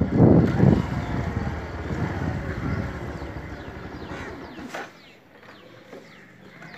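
Motorbike riding up and slowing to a stop, its low rumble and wind noise fading until the engine cuts out sharply a little past halfway. Faint falling bird chirps follow.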